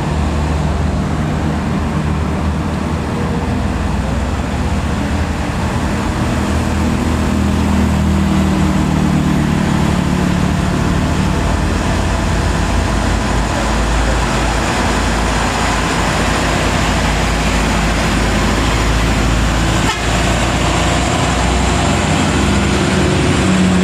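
Heavy diesel truck engine labouring steadily up a climb under load, with road and tyre noise; it grows slightly louder near the end.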